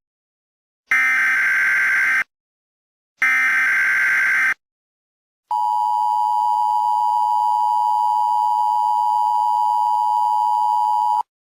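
Emergency Alert System activation: the last two SAME digital header bursts, each about a second and a half long with a short gap between, then the EAS attention signal, a steady two-tone beep held about six seconds that cuts off suddenly near the end.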